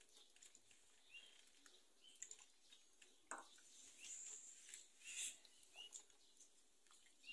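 Near silence with a bird's faint short chirps, repeating about once a second. A light knock about three seconds in and a brief rustle a couple of seconds later.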